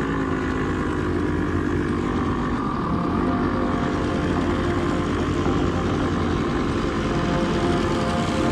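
ATV (quad bike) engine running steadily while riding, its pitch shifting a little about three seconds in.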